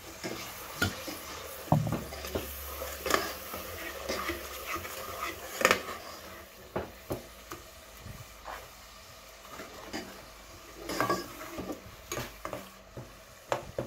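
Spatula stirring and scraping tomato-and-spice masala around a nonstick saucepan, with irregular knocks against the pan and a faint sizzle as the masala fries in oil and a little water.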